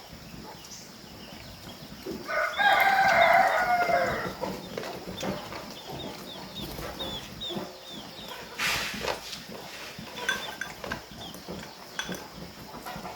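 A rooster crows once, loudly, for about two seconds, followed by a run of short, high, repeated bird chirps, with a brief rustling noise about two-thirds of the way through.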